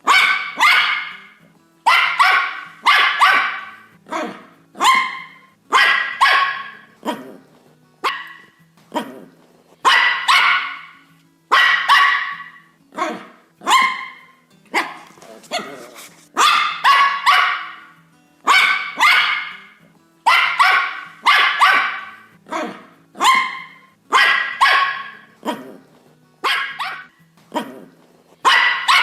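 A dog barking over and over, in single and double barks about one to two a second, each with a short trailing echo.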